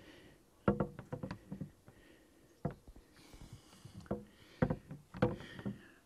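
Irregular knocks and clicks of a long-reach lockout rod tapping and scraping against the car's interior door panel and armrest while fishing for the door's unlock button. A quick cluster comes about a second in, then single knocks every second or so.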